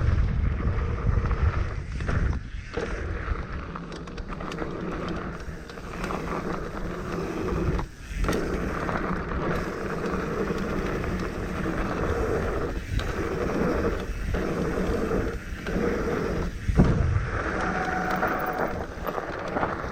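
Mountain bike tyres rolling fast over a dirt trail, with rattling and wind rush on the camera mic. Several brief dips in the noise break it up.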